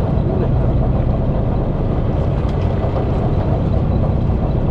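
Fishing boat's engine running steadily, a low even hum.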